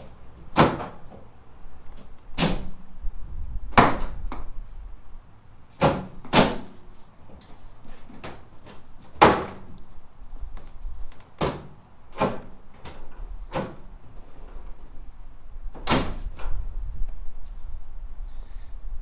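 A series of about ten sharp, irregularly spaced knocks and clunks, with no steady motor sound between them.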